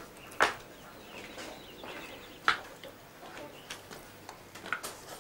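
Chickens clucking now and then: a few short, sharp clucks, the loudest about half a second in and again about two and a half seconds in.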